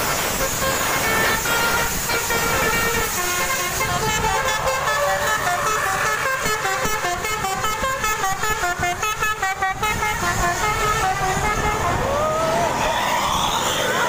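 Tour bus's multi-note 'telolet' musical air horn of the Basuri type, playing a fast tune of short stepped notes rising and falling for several seconds, over the bus's engine and tyre noise as it passes. Near the end a single sliding tone rises.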